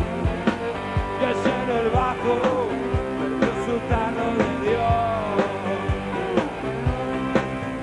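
Rock band playing live: distorted electric guitars and a steady drum beat of about two hits a second, with a voice singing a bending melody over them.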